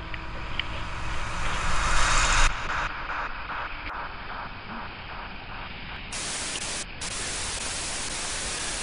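Harsh static hiss that swells to a loud peak and cuts off abruptly about two and a half seconds in, then pulses about three times a second, and comes back as two hard-edged bursts of hiss near the end.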